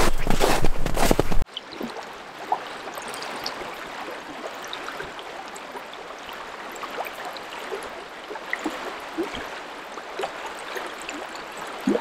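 Boots crunching through snow with a quick stride for about the first second and a half, then a sudden cut to the steady rush and gurgle of a flowing river, with scattered small plinks and splashes over it.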